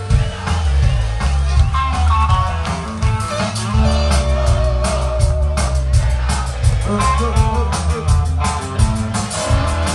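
Live rock band playing: distorted electric guitars over bass guitar and a drum kit with steady cymbal and drum hits.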